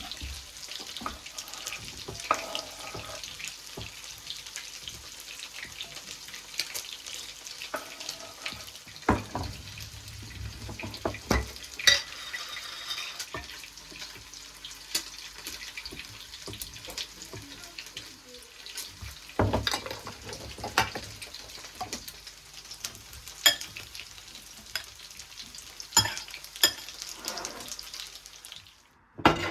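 Food frying in a pan with a steady sizzle, while a utensil stirs and knocks against the pan in scattered clicks. The sound cuts off suddenly near the end.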